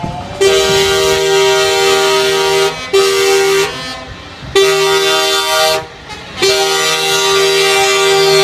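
Truck air horns sounding a multi-note chord in four blasts: a long blast, a short one, a slightly longer one, then another long blast starting near the end.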